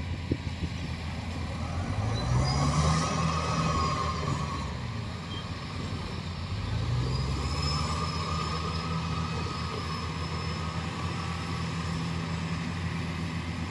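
Engine of a tracked rice-haul carrier running as it crawls across a muddy field. Its pitch rises twice, about two seconds in and again about halfway, then holds steady.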